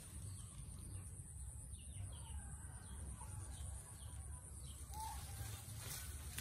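Faint outdoor ambience: a steady low rumble with a few faint, short chirps scattered through it, the clearest about five seconds in.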